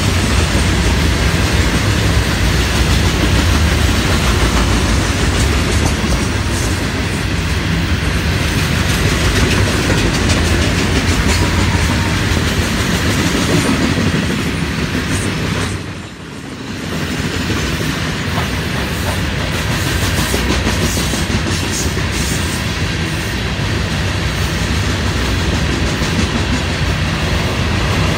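Freight train cars (hoppers, gondolas and boxcars) rolling past close by: the steady noise of steel wheels running on the rails, dipping briefly about halfway through.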